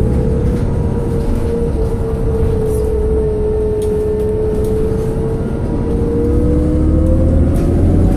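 Interior drivetrain sound of a 2008 New Flyer C40LF transit bus with a Cummins Westport ISL G natural-gas engine and ZF Ecomat transmission: a low rumble under a steady whine. The whine sags slightly midway, then climbs in the last couple of seconds as the bus picks up.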